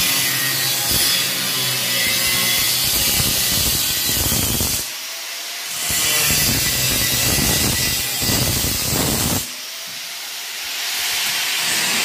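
Angle grinder with a cut-off disc cutting through a metal cable tray, a loud steady grinding hiss over the motor's hum, while notches are cut so the tray can be bent to 90 degrees. The cutting sound breaks off twice briefly, about five seconds in and again near ten seconds.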